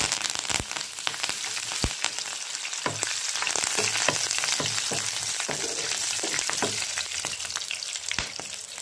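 Fresh curry leaves and green chillies sizzling and crackling in hot oil in a frying pan as they are stirred, with a few light knocks of the spatula against the pan.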